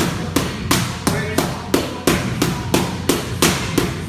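Boxing gloves smacking focus mitts in a fast, steady rhythm, about three punches a second.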